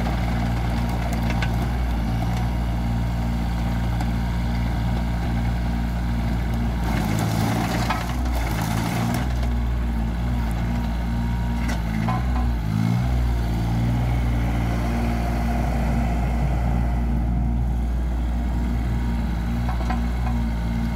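Wacker Neuson 1404 mini excavator's diesel engine running steadily as the machine travels on its rubber tracks. The engine note changes briefly twice, about a third of the way in and again a little past halfway.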